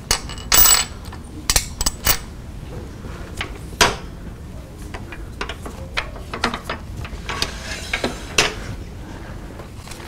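Irregular metallic clicks and clinks from a wood lathe's scroll chuck and tailstock being adjusted to seat a wooden block, with one longer clatter about half a second in. The lathe is not running.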